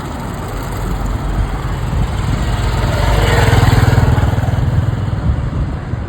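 A motor vehicle driving past close by: its engine rumble grows to a peak about halfway through, then fades away.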